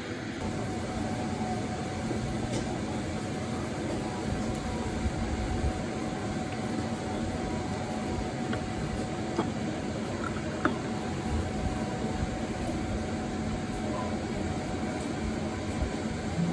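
Steady background room noise of a small eatery: a constant hiss with a faint steady hum, broken by a few light clicks of chopsticks and tableware.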